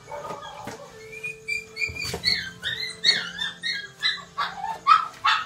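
A dog whining and yelping in a run of high cries that rise and fall, turning into short, sharp yelps near the end, over background music, with the odd clink of dishes.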